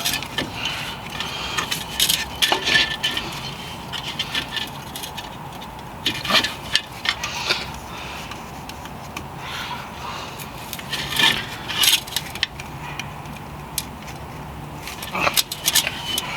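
Irregular clicks, taps and short scrapes from hands and tools working on a minivan's rear hub assembly and its cable connector, a few sharper clicks standing out now and then.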